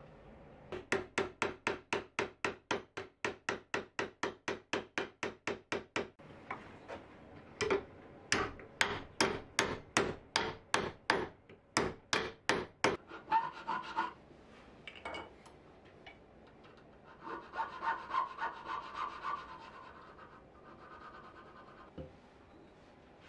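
Hand file stroking across a brass part: a run of quick, even strokes, about four a second, then a second run of slower, harder strokes. A softer rubbing follows near the end.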